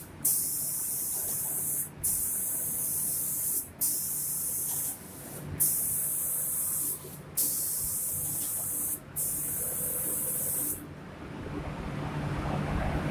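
Automatic cabinet-door painting machine's spray gun hissing as compressed air sprays paint, in six bursts of about a second and a half each, separated by short breaks. The spraying stops about 11 s in, leaving a lower rushing noise over a steady machine hum.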